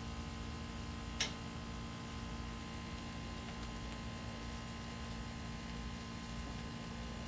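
Steady hiss with a low hum underneath, and one sharp pop about a second in.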